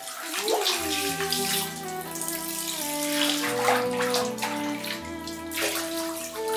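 Bathwater splashing and sloshing in a tub as hands move through it, with a few louder splashes. Music with long held notes plays underneath, starting about a second in.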